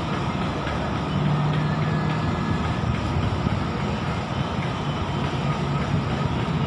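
English Electric ex-Queensland Railway Class 1620 diesel train passing: a steady rumble of engine and running gear, with a low engine hum that comes up about a second in.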